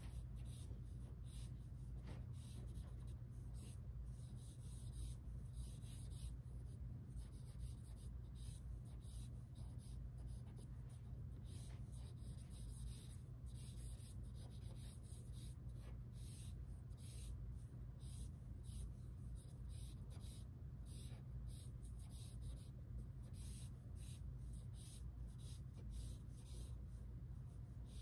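Pencil scratching on drawing paper in short, irregular strokes as lines are sketched, over a faint steady low hum.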